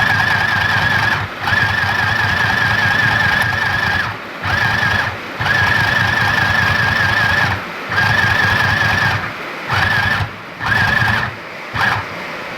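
Mini sewing machine stitching, its small motor running in bursts with a high, wavering whine over a low hum, stopping and restarting about eight times, the runs ranging from under a second to nearly three seconds.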